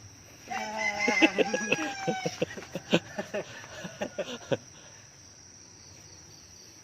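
A rooster crowing once, a pitched call of about two seconds, followed by a run of short sharp clicks over the next two seconds. Crickets trill steadily behind.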